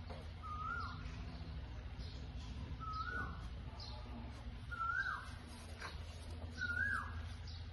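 A bird calling over and over, one short whistled note that rises and then drops, about every two seconds, over a steady low hum.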